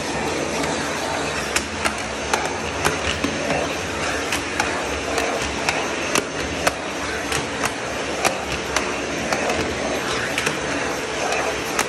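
Vacuum cleaner running steadily as its floor head is pushed back and forth over stair treads, with frequent small knocks and clicks as the head bumps the steps and nosings.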